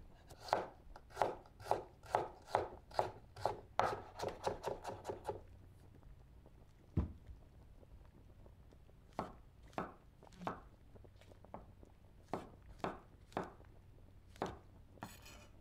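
Knife slicing sausage on a cutting board: a quick, even run of cuts, about three a second, for roughly five seconds, then one heavier knock about seven seconds in, followed by slower, spaced cuts.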